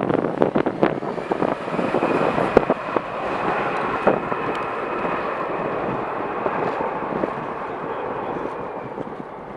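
Jet airliner's engines running as the plane passes: a steady rush with a thin high whine that sets in about a second and a half in and fades near the end. Gusts buffet the microphone in the first second.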